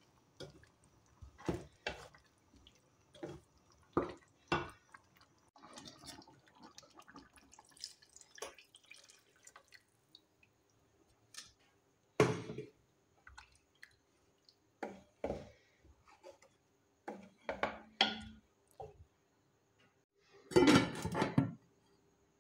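Wooden spoon stirring a thick, wet curry in an aluminium pan, knocking now and then against the pan's side. Near the end comes a loud clatter of the aluminium lid being set on the pan.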